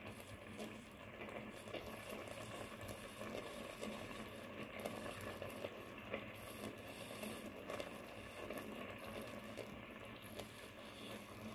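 Ginataang tulingan, bonito in coconut milk, simmering in a pot: faint, irregular bubbling and popping of the thick sauce.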